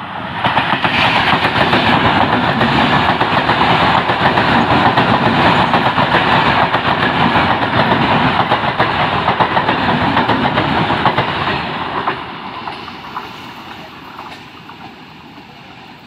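Electric multiple-unit commuter train passing close at speed: a loud rush of wheels on rail with rapid clatter. It starts about half a second in, stays loud for about twelve seconds, then fades as the train draws away.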